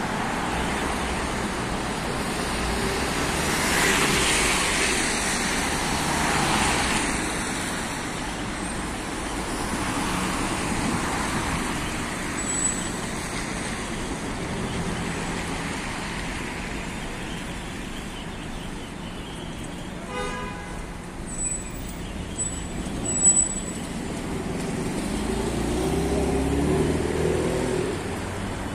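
Road traffic passing on a wet city street: cars and vans driving by with tyres hissing on the wet asphalt, swelling as each vehicle goes past. A few brief sharp sounds come about two-thirds of the way through.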